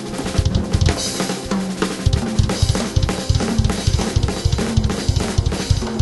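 Jazz-fusion band music led by a busy drum kit: rapid kick-drum and snare strokes with cymbals, over held low bass notes.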